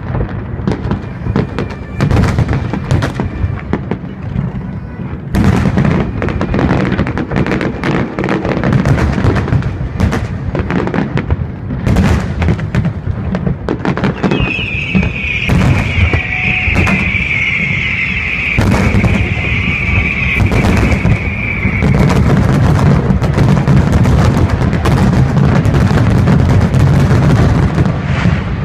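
Aerial firework shells bursting in rapid, overlapping booms and cracks over a continuous low rumble from the barrage. About halfway through, a high hiss rises over the bursts and lasts several seconds.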